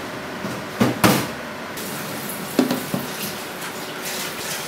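Knocks and clunks of things being handled and set down in a kitchen: two sharp knocks about a second in, then two more a little before three seconds.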